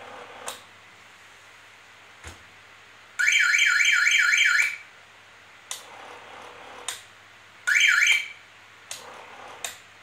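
Electronic alarm siren from a horn speaker sounding rapid rising whoops, about four a second, in a burst of about a second and a half and then a shorter burst near the end. Sharp switch clicks come between the bursts, with a quieter steady whir between some of them.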